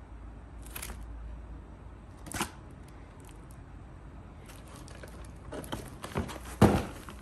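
Plastic packaging rustling and crinkling as it is handled: a couple of brief rustles, then more continuous crackle in the second half, with one sharp thump near the end as the boxed kit is moved.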